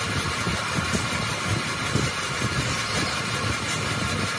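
A machine running steadily, with a constant high hum and irregular low knocks underneath.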